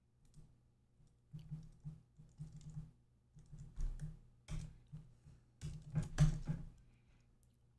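Typing on a computer keyboard in irregular bursts of keystrokes, with short pauses between, stopping about a second before the end.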